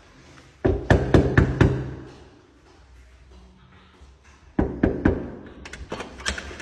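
Knuckles knocking on a closed interior door: two rounds of quick knocks, about five in each, a few seconds apart. The second round is less even than the first.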